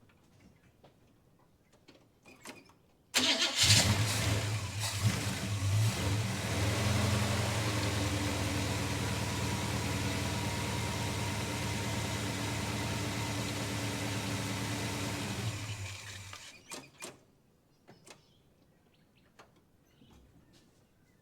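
Holden HK engine cold-starting: it catches abruptly about three seconds in, loudest in its first second, then idles steadily for about twelve seconds before being switched off and running down. A tick can be heard from the engine as it runs.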